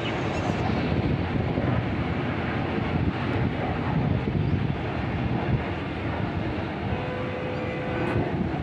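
Jet airliner flying low on approach, its engines a steady distant rumble.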